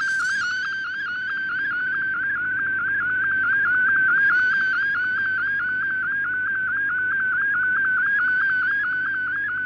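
Shortwave Radiogram MFSK colour picture transmission received off shortwave: a single warbling tone near 1.5 kHz whose pitch dips briefly several times a second as the image data is sent.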